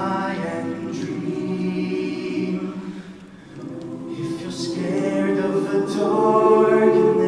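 Mixed show choir singing sustained chords, breaking off briefly about three seconds in, then swelling louder toward the end.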